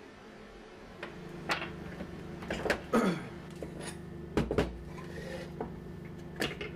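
Clinks and knocks of small metal parts and tools being handled on a workbench, over a steady low hum that starts about a second in.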